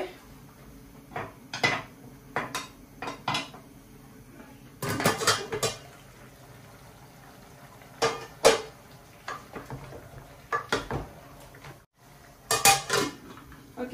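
Cookware clattering: a glass pot lid and a stainless steel pot lid lifted and set down, with utensils knocking against the pots, as scattered short clinks and knocks with busier flurries about five seconds in, around eight seconds, and near the end.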